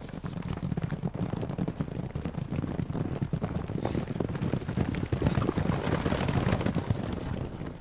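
Several horses galloping over hard ground: a rapid, continuous clatter of hoofbeats.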